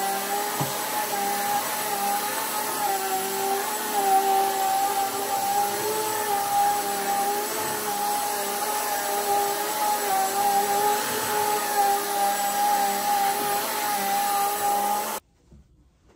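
Upright bagless vacuum cleaner running steadily on carpet: a constant motor whine with a slight waver in pitch, cutting off abruptly about a second before the end.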